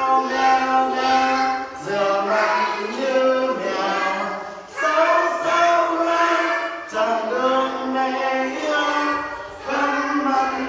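A group of young children singing a song together unaccompanied, in short phrases of held notes.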